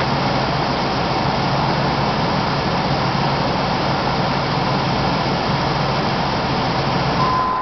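The carbureted 5.0-litre (307) V8 of a 1987 Cadillac Brougham idling steadily at the tailpipe after a cold start, a low, even exhaust hum with no revving. The owner describes the engine as running rich.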